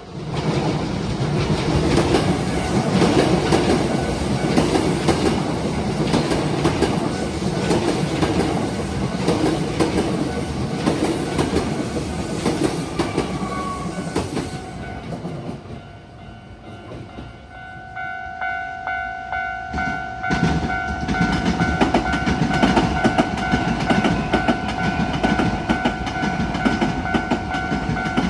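A Hankyu electric train passes over a level crossing, its wheels clattering rapidly over the rail joints. It fades away about halfway through. Then the crossing's warning bell starts ringing with a steady, pulsing clang, and another train comes through with the same clatter while the bell keeps going.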